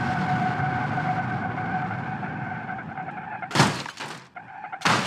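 A long steady tyre skid screech from a braking car, then two sudden crashes with a shattering, breaking sound about three and a half and five seconds in.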